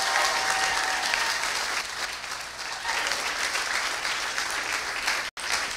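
A congregation applauding, the clapping slightly louder for the first two seconds, then easing a little.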